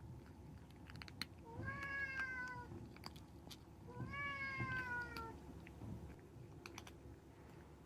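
A young kitten meowing twice, each call about a second long and sagging a little in pitch, with a few light clicks in between.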